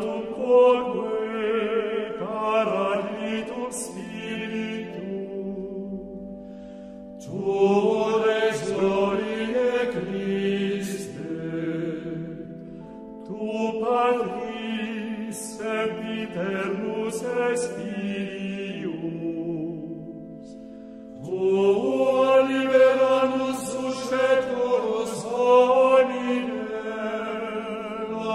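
Voices singing a slow church chant in repeated phrases over steady held chords, with brief breaks between phrases.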